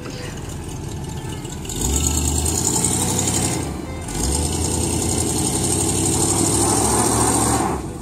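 1984 Lazy Daze motorhome's engine idling, then revved hard twice under load, once from about two seconds in and again from about four seconds in until near the end, as the motorhome strains against a chain tied to a bush.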